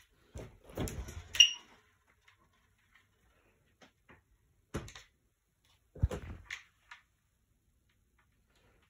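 Doors of an integrated fridge freezer being handled and opened. A cluster of clatter ends in a sharp click about a second and a half in, then a single knock comes near the middle and a heavier thump follows shortly after.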